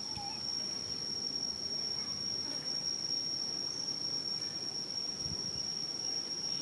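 Insect singing a steady, high-pitched, unbroken drone on a single tone, with a low rustling noise underneath.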